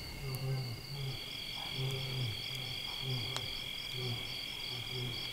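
A lion roaring, its call breaking into a run of short, low, falling grunts about three a second. Behind it is a steady high chirring of crickets and other night insects.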